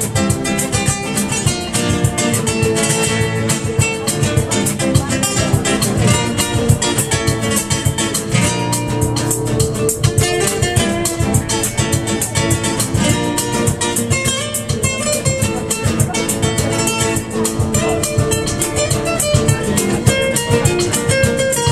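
Two acoustic guitars strummed together in a steady rhythm, played live inside a metro carriage.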